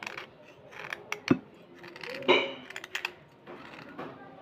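Small knife blade scraping white slate pencils: irregular crisp clicks and short scrapes, with a sharp thump just over a second in and a louder scrape a little past halfway.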